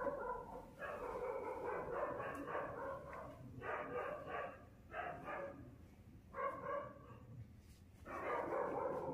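A dog whining and barking in about five bouts. The first bout is drawn out for a couple of seconds; the later ones are shorter.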